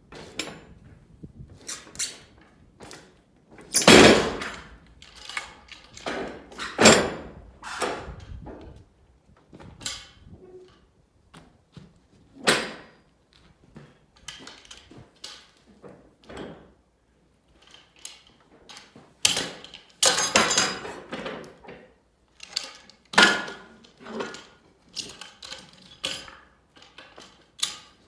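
Irregular knocks, thuds and clatters, as of wood and metal being handled, with no saw running. The loudest come about four and seven seconds in, and a busy run of them about twenty seconds in.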